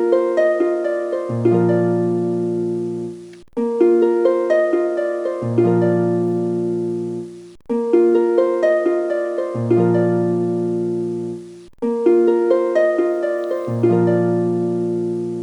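Background music: a gentle plucked harp-like melody that repeats in a short loop, restarting about every two seconds with a brief break between phrases.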